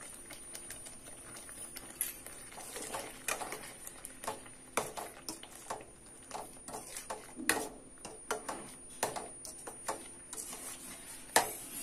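Slotted steel spoon stirring a thick masala gravy in a steel pan, with irregular clicks and scrapes of metal against the pan.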